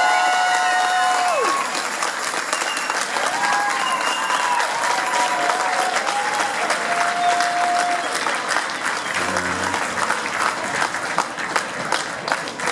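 Audience applauding, with a few shouts from the crowd; a held tone slides down and stops about a second and a half in, and the claps become sparser and more distinct near the end.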